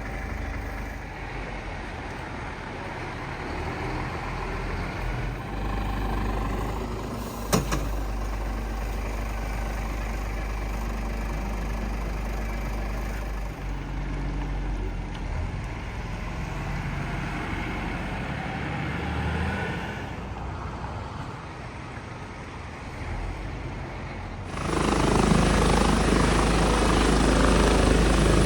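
Steady outdoor vehicle rumble with one sharp crack about a quarter of the way in. Near the end a much louder, steady helicopter noise sets in.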